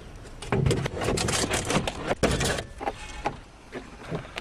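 Metal parts of a wrecked light plane rattling, clanking and scraping as they are wrenched by hand. There is a dense clatter of knocks in the first half-second to three seconds, then a few scattered knocks.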